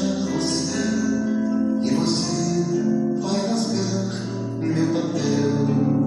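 Music playing, a song led by acoustic guitar.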